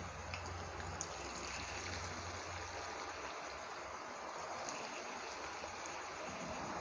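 Rice-flour fritter batter deep-frying in hot sunflower oil: a steady sizzle with a few faint pops.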